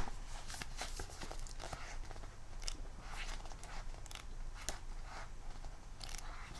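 Pages of a hardcover photobook being flipped and handled: faint, scattered paper rustles and flicks, with a sharper snap right at the start.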